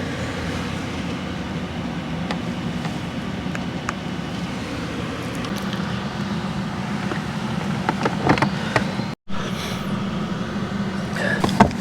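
Portable air conditioner running with a steady hum, with a few short handling clicks and rustles near the end and a brief cut-out about nine seconds in.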